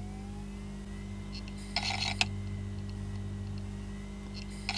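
Failing Western Digital 500 GB Green hard drive running in a USB docking station: a steady motor hum with a faint high whine that wavers a little in pitch, a short burst of clicking about two seconds in, and a single click near the end. The motor speed sounds like it is varying a bit, which may be the dock's doing, and the drive's bearings are suspected to be on the way out.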